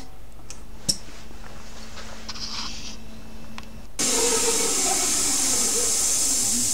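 An air chuck being worked from its push-buttons: a sharp click, then a short hiss of air. About four seconds in, a CNC lathe spindle starts running with the chuck turning, a loud steady hiss that stops suddenly.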